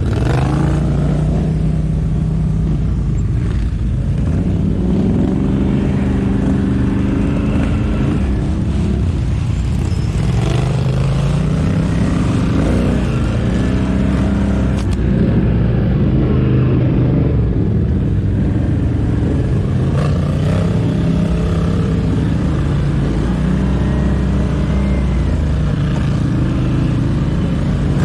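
ATV engine running under load, its pitch repeatedly rising and falling every few seconds as the throttle is opened and eased.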